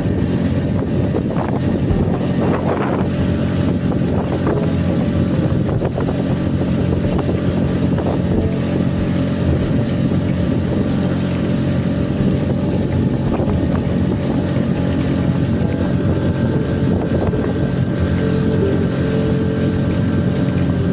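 Small outboard motor of a Solo Skiff motorized kayak running steadily under way, with a constant engine note. Wind buffets the microphone over it.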